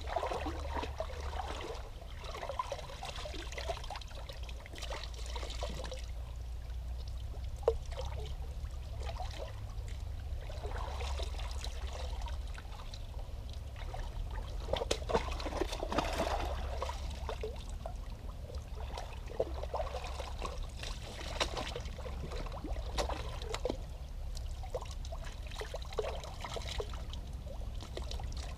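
Water streaming and trickling out of waterlogged skate shoes lifted out of a shallow creek, swelling and fading in bursts, with splashing as feet move in the water. A low steady rumble runs underneath.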